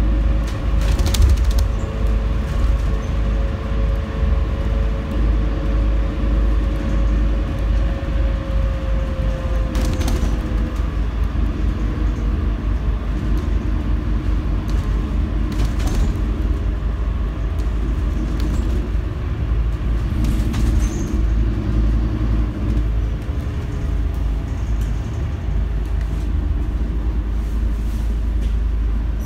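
Scania N250UD double-decker bus heard from the top deck on the move: a steady low rumble from its five-cylinder diesel engine and the road. A whine eases slightly in pitch and fades out about ten seconds in, and a few knocks and rattles come over bumps.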